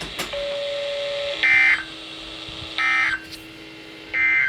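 EAS SAME end-of-message data bursts on a NOAA Weather Radio broadcast, heard through a receiver's speaker: three short, evenly spaced bursts of buzzing digital tones closing the Severe Thunderstorm Warning, over a faint steady low hum.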